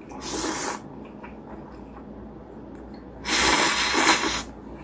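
Thick, chewy noodles slurped up loudly twice: a short slurp just after the start, then a longer slurp of about a second past the three-second mark.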